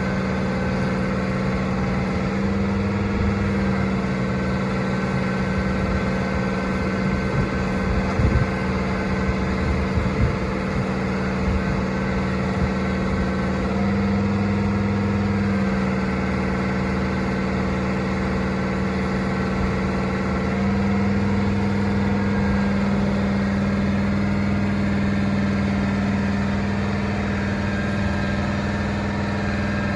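An engine running steadily at idle, with a few short knocks about eight to ten seconds in.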